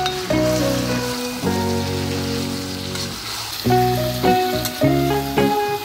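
Background music with slow held melodic notes, over a steady hiss of masala chicken sizzling in a cast-iron kadai as it is mixed.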